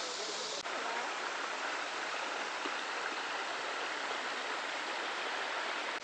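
Small waterfall spilling down bare rock into a pool: a steady rush and splash of water, with a brief break about half a second in.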